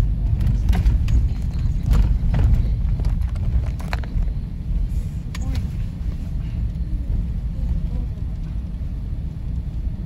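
Road noise inside a car driving over rutted, icy packed snow: a steady low rumble, with several sharp knocks and rattles as the car jolts over the ruts in the first few seconds and once more at about five and a half seconds.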